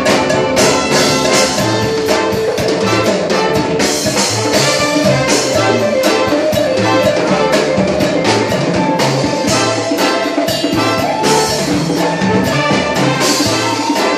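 Live band playing upbeat dance music with a steady beat, loud and close to the phone's microphone.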